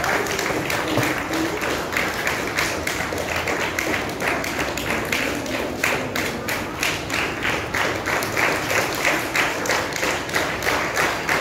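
A crowd clapping, the claps falling into a steady beat of about three a second from about halfway through.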